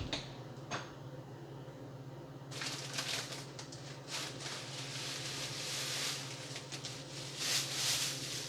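Thin plastic produce bag rustling and crinkling as it is handled and wrapped around a sealed container. The rustling starts about two and a half seconds in, after a couple of light clicks.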